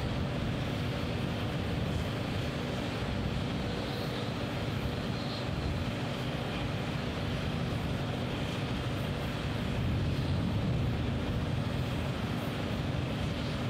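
Steady drone of running engine-driven machinery, with a constant low hum holding one pitch.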